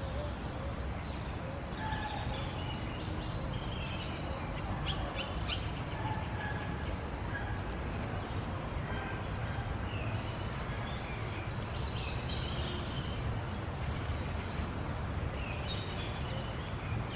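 Parakeets chirping and chattering in short, scattered calls, over a steady low rumble.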